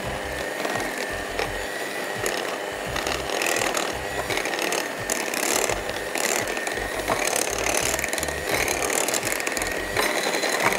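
Electric hand mixer running with a steady high whine, its beaters clattering in the bowl as they break up bananas in cake batter.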